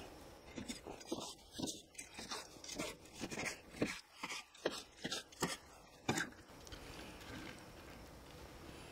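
Knife slicing through a crusty, pepper-coated steak on a board: a run of short cutting strokes for about six seconds, then it goes quiet.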